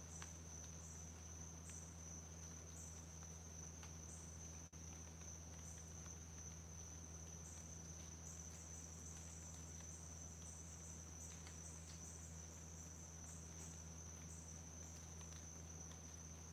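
Insects trilling steadily on one continuous high note, with a brighter chirp added about once a second, over a low steady hum and a few faint scattered ticks.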